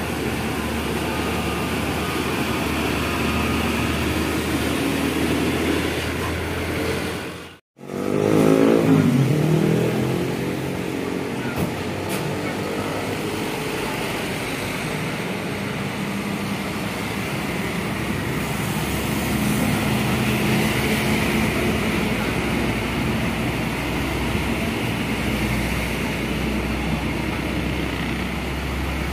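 Heavy diesel trucks and motorcycles passing on a busy highway, with a steady low engine rumble and tyre noise. About eight seconds in, the sound cuts out for a moment, then a loud engine passes close with its pitch falling.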